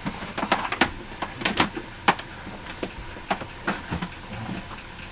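Irregular clicks and rustles of a coil of new two-wire electrical cable being handled and pulled out, several sharp ticks a second.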